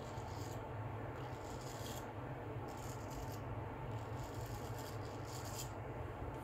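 Filarmonica 15/16 full hollow straight razor cutting through lathered stubble on the neck in several short scratchy strokes; the full hollow blade sings as it cuts.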